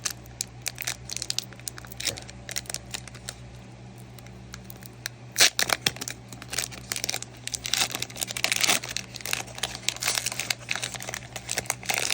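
Foil wrapper of a Pokémon card booster pack crinkling and tearing as it is opened by hand, with the loudest rip about five and a half seconds in. A faint steady hum sits underneath.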